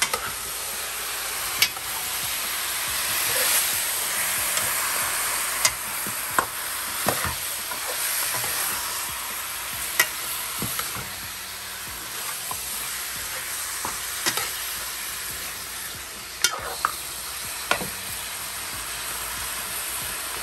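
Seasoned pork pieces sizzling as they brown in a metal pot, stirred with a metal spoon that scrapes and knocks against the pot about ten times.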